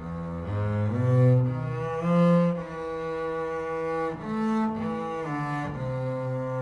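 Double bass played with the bow: a phrase of sustained notes stepping up and down in pitch, each held for roughly half a second to a second.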